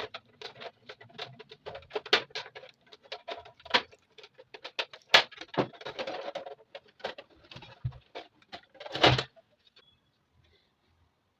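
Irregular clicks, taps and rattles of small hard parts being handled, with a brief scraping stretch about six seconds in; it stops about nine and a half seconds in.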